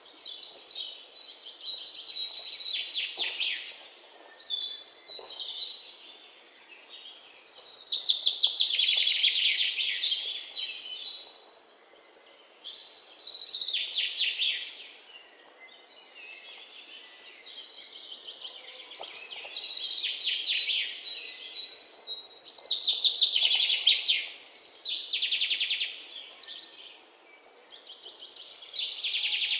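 Small songbirds singing in long, fast-trilled phrases a few seconds each, with short pauses between them.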